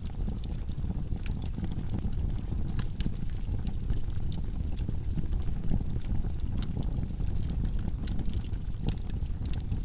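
Log fire burning in a fireplace: a steady low rumble of flames with frequent sharp crackles and pops from the burning wood.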